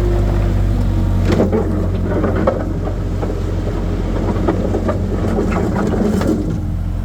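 Skid steer engine running steadily under work. From about a second in until near the end, irregular scraping, crackling and knocking, typical of the bucket working through dirt on hard ground.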